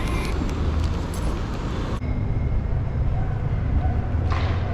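Steady low rumble of street traffic and wind noise, with an abrupt change in the sound about two seconds in.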